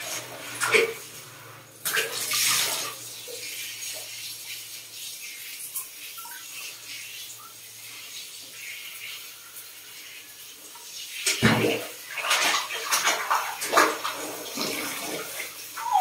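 Water spraying from a handheld shower head and splashing on a baby monkey and the toilet seat. It is a steady hiss, with louder splashing near the start and again from about three-quarters of the way through.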